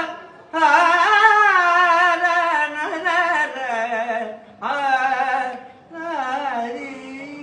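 A man singing unaccompanied into a microphone: long, ornamented phrases of a Tamil devotional song, the pitch sliding and wavering within each note. The phrases break off briefly between breaths, and a held note fades near the end.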